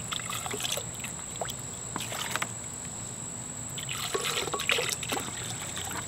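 Thick blended chile marinade trickling and dripping from a glass blender jar into a plastic bowl, in irregular spatters.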